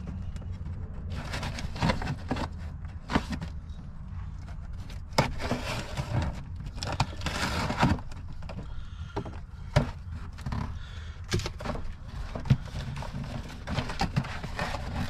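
A knife slitting packing tape on a cardboard box, with irregular scrapes and knocks as the box is handled, then the flaps opened and paper packing rustled near the end. A steady low hum runs underneath.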